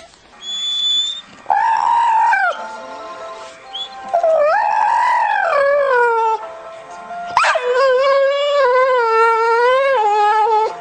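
A dog howling: three long drawn-out howls, the last the longest and lower in pitch, with a brief thin high whistle just before the first.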